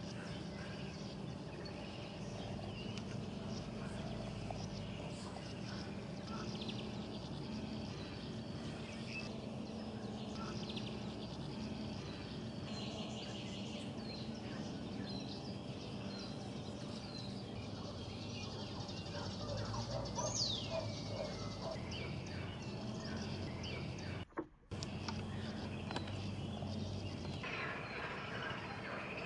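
Birds chirping and calling over a steady low hum, one call a quick falling whistle about twenty seconds in. The sound drops out briefly about 24 seconds in.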